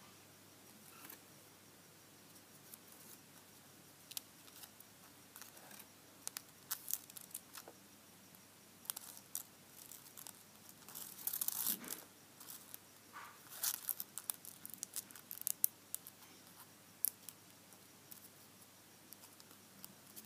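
A thin strip of paper crinkling and rustling as fingers loop it and pull it into a knot, in short, scattered crackles that are busiest in the middle.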